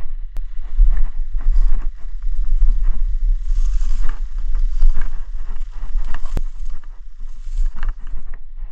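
Irregular rustling, crackling and snapping of undergrowth over a heavy low rumble on the microphone, as someone pushes through dense brush.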